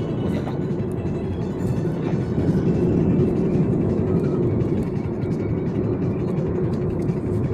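Steady road and engine noise heard from inside a moving car's cabin, a continuous low rumble.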